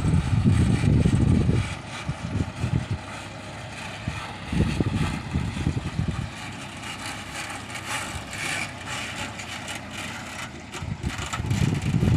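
Heavy diesel engine of the loading machinery running, loud for the first second and a half, then quieter with a brief surge about four and a half seconds in, and picking up again near the end.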